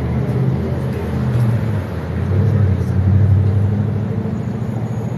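Street traffic: a motor vehicle's engine running with a low, steady hum, swelling about three seconds in.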